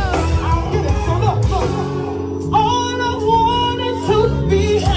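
A song with a singer over a band: a sung melody bends and holds notes above a steady bass line.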